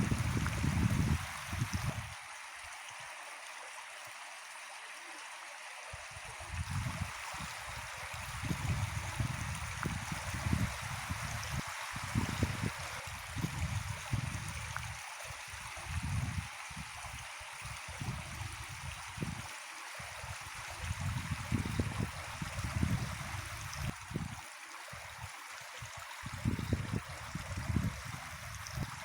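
Stream running with a steady rush of flowing water. Irregular low rumbling comes and goes over it.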